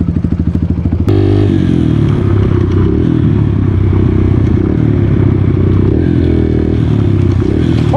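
Dirt bike engine idling with a rapid, even beat, then cut abruptly after about a second to the same kind of engine running steadily under throttle as the bike rides along a dirt trail.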